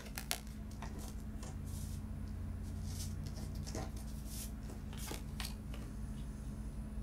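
Cardstock being handled on a craft mat: scattered faint rustles and light taps as paper circles are picked up and pressed together, over a steady low hum.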